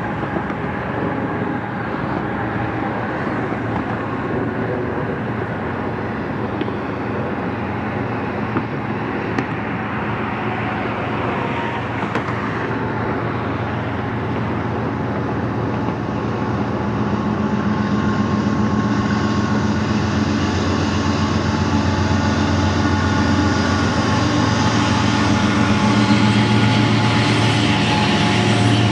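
Two BNSF GE diesel-electric freight locomotives running as they round a curve, their engine drone growing louder from about halfway through as they pass close. Near the end the freight cars roll by on the rails.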